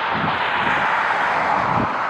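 Steady, loud jet aircraft engine noise, with wind gusting against the microphone.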